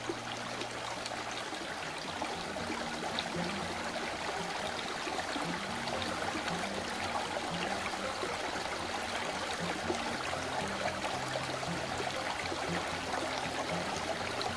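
A small river flowing: a steady rush and trickle of shallow running water.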